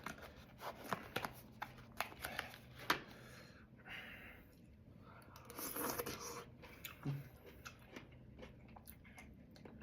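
A person chewing food close to the microphone: wet mouth clicks and crackles in the first few seconds, then a couple of short breaths.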